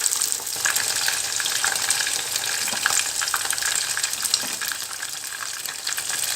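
Whole koduva (barramundi) coated in spiced flour batter sizzling in shallow oil on a tawa, a steady hiss with many small crackles as it fries slowly on medium flame.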